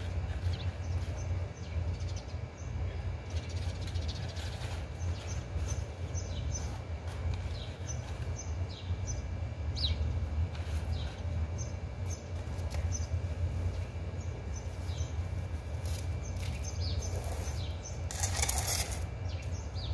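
Small birds chirping in short, scattered calls over a steady low rumble, with a brief rustle of plastic near the end.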